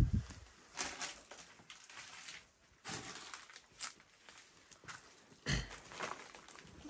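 Footsteps scuffing and crunching over a littered floor: irregular steps, with a heavy thud at the start and another about five and a half seconds in.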